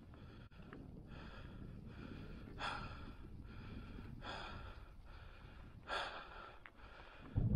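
A hiker breathing hard on a steep climb: a few heavy breaths about a second and a half apart, over a low rumble of wind on the microphone.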